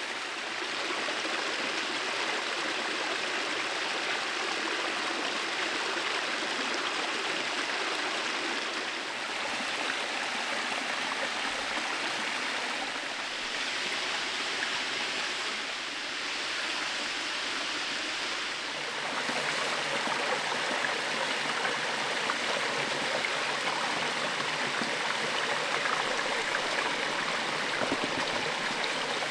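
Steady rushing of running water, its character shifting a few times.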